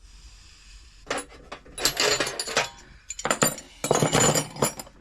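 Loose metal sockets and hand tools clinking and rattling together as they are handled, in two spells of about a second and a half each.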